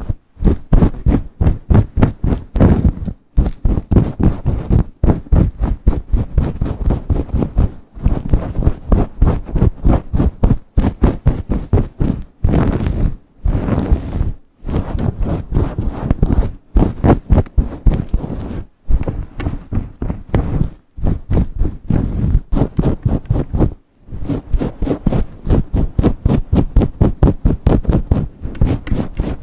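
Fingers and long acrylic nails scratching and rubbing fast through hair, close to the microphone, in quick back-and-forth strokes several a second, broken by a few short pauses.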